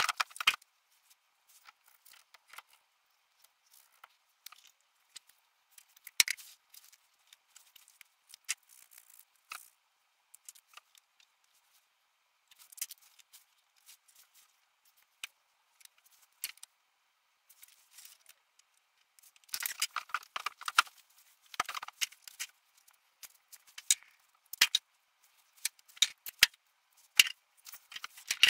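Hard 3D-printed plastic exhaust mock-up pieces clicking and clattering as they are handled and pushed together. The sound comes as scattered sharp clicks and short rustling clusters with quiet gaps between them.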